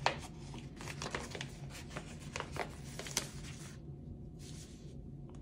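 Sticker sheets and paper being handled: a scatter of small crinkles, ticks and peeling sounds as stickers are lifted and pressed down.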